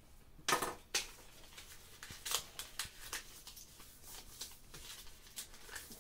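A sheet of paper being folded by hand into a paper plane: short rustles and swishes as it is handled, with the folds pressed and creased flat on a desk. The loudest rustle comes about half a second in.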